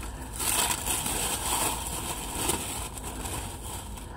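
Packaging crinkling and rustling as it is unwrapped by hand, busiest in the first half.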